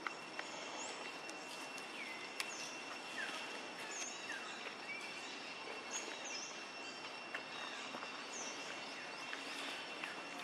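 Outdoor ambience: a steady hiss-like background with a faint, steady high whine, and scattered short bird chirps.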